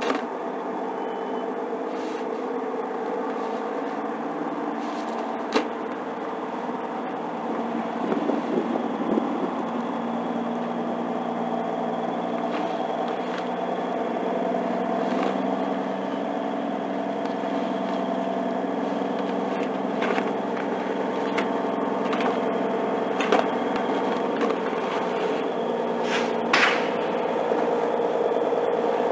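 Truck engine idling steadily, with a few sharp clicks and some rustling as a plastic smoke tarp is spread over the load.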